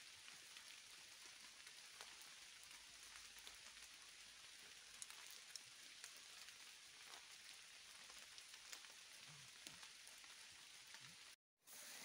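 Faint, steady patter of light rain on forest leaves, with scattered tiny ticks of single drops. It drops out briefly near the end.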